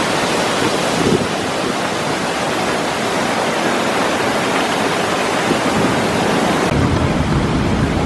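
Waterfall pouring close by: a loud, steady rush of falling water and spray. A deeper rumble comes in near the end.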